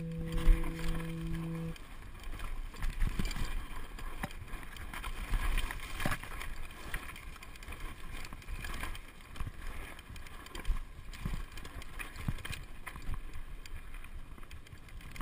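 A held musical tone cuts off about two seconds in. After it comes a mountain bike descending a rocky dirt trail: tyres rolling and crunching over dirt and stones, with the frame and chain rattling and knocking irregularly over roots and rocks.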